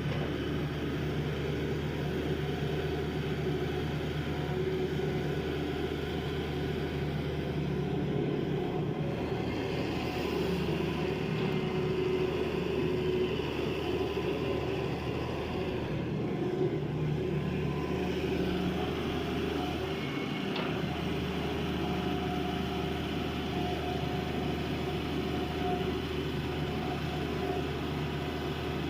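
Excavator's diesel engine running steadily under work, with its note shifting slightly now and then.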